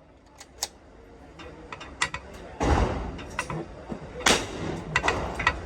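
Two sharp gunshot reports, about two and a half and four seconds in, with small clicks between; one of them is a shot from a Bergara B14R .22 LR bolt-action rifle.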